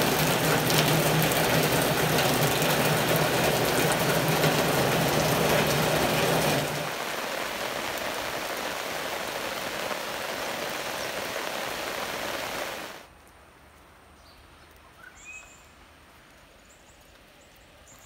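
Heavy rain falling, a steady even hiss. It drops in level about seven seconds in, and again about thirteen seconds in to a faint background with a few short, faint high calls.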